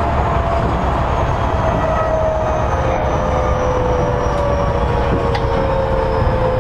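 Tokyo Metro 10000 series train running between stations, heard from inside a car: a steady rumble of wheels on rail with a motor and gear whine whose pitch slowly falls as the train loses speed.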